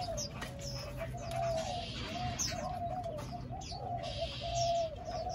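Spotted doves cooing on and on in a low, wavering voice, with short high chirps from smaller birds and a faint steady low hum underneath.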